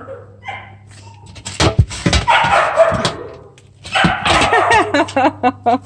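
A couple of knocks and some scuffling, then a quick run of short, high animal cries.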